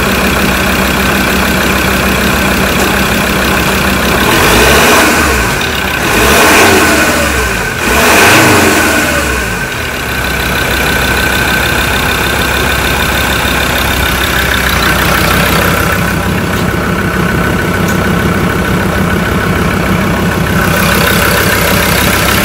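2017 Mazda BT-50's turbo-diesel engine running with the bonnet open: idling steadily, revved up three times in quick succession about four to ten seconds in, then settling back to idle.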